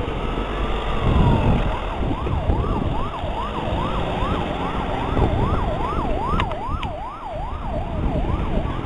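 Police van electronic siren: a slow wail peaks and falls in the first second or two, then it switches to a fast yelp of about two and a half sweeps a second, over vehicle engine and traffic rumble.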